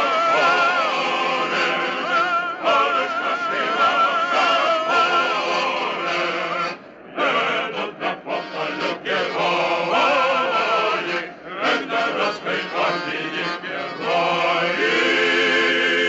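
A Russian chorus singing in full voice, the voices wavering with vibrato. It breaks off briefly about seven seconds in, then ends on a long held chord.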